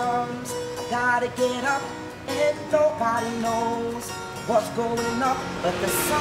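Steel-string acoustic guitar strummed in a steady rhythm, with a man singing along over it.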